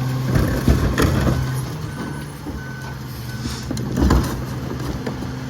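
Freightliner McNeilus rear-loader garbage truck's diesel engine running steadily while its reverse alarm beeps about four times, each beep short and evenly spaced. Two knocks, about a second in and near four seconds, stand out above the engine.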